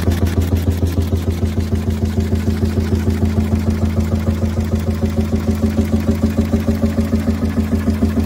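Beijer hot bulb engine running steadily with an even, rapid beat of about five to six pulses a second.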